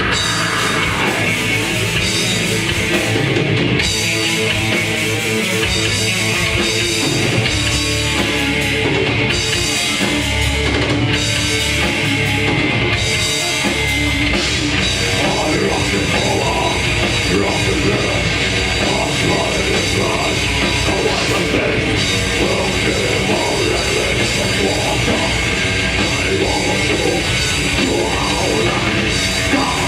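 Death metal band playing live: distorted electric guitars and a drum kit, loud and dense throughout.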